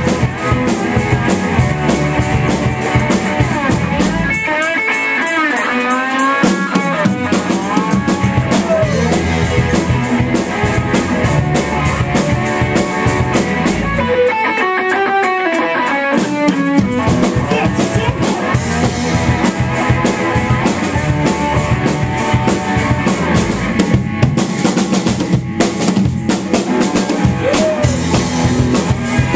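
Live rock cover band playing electric guitars, bass and drum kit. The drums and bass drop out twice for a couple of seconds, about four and fourteen seconds in, leaving bending pitched lines above before the full band comes back in.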